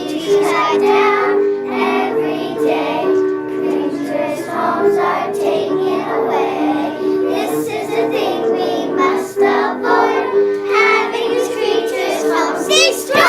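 A group of children singing a song together over music, in a stepping melody of held notes.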